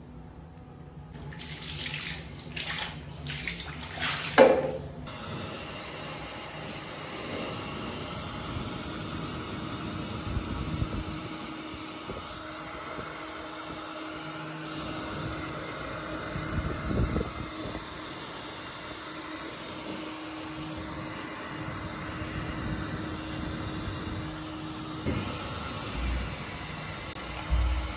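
Water running from a tap into a sink, with a few sharp splashes and knocks in the first few seconds, the loudest about four seconds in, and occasional low thumps later.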